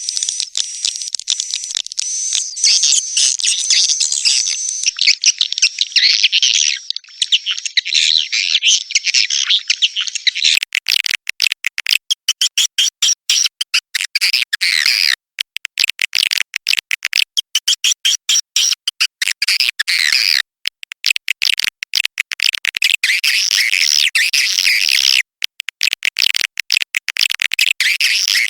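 Swiftlet call lure recording: dense, rapid, high twittering chirps of swiftlets, played to attract the birds to roost and nest in a swiftlet house. About ten seconds in the chirping changes and is cut by many brief sudden gaps.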